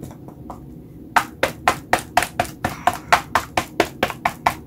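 Sharp taps of a small round stamp pressed again and again onto a painting on a board, printing circles of paint. A couple of faint taps, then about a second in a quick even run of about four to five taps a second.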